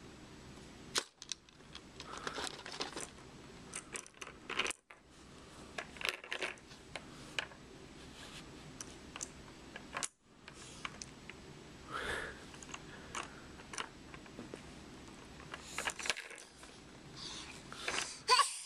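Scattered light clicks and taps, irregular and a few seconds apart, with some brief faint rustling between them.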